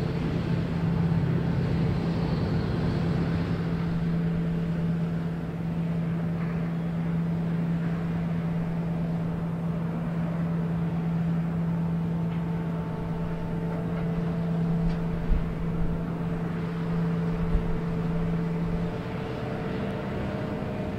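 Large diesel engine running at a steady low hum, its note changing and turning a little quieter near the end. A couple of dull knocks sound in the second half.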